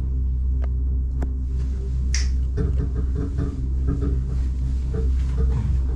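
Steady low rumble and hum inside a moving cable car cabin, with two light clicks near the start and a brief hiss about two seconds in.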